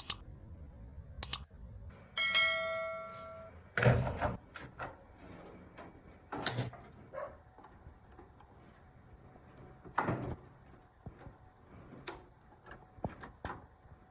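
Metal parts being handled and knocked on a bench: a series of clicks and knocks, one of which, about two seconds in, sets a piece of metal ringing for over a second before it dies away.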